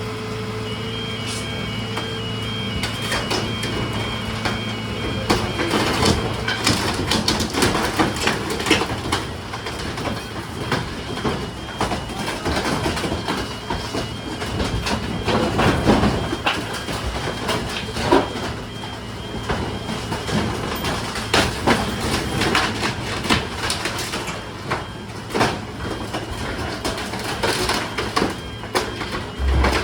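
Garbage truck engine running with its backup alarm beeping steadily, while loose debris clatters and bangs in a stream of knocks, heaviest around the middle.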